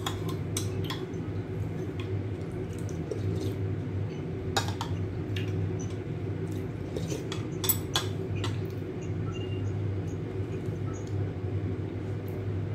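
Metal spoon and metal chopsticks clinking against a ceramic soup bowl while eating, in scattered single clinks, most around a second in, near five seconds and around eight seconds. A steady low hum runs underneath.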